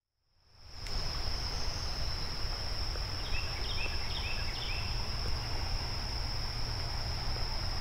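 Insects trilling steadily at one high pitch, fading in at the start, with a few short chirps around the middle and a low steady rumble underneath.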